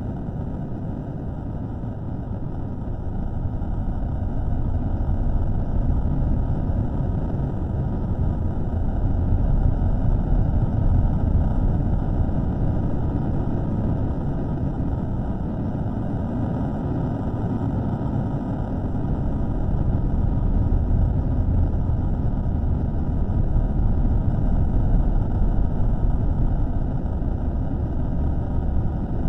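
Low rumbling noise from a microphone recording played slowed down, steady with no distinct events, swelling and easing gently every few seconds.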